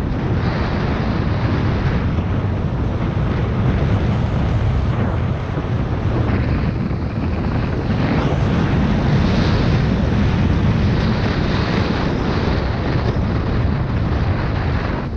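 Wind buffeting the microphone while riding, with a Suzuki MX125 motorcycle's engine running underneath.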